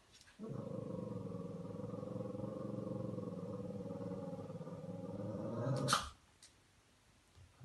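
Shih Tzu growling steadily for about five and a half seconds, breaking off with one sharp bark.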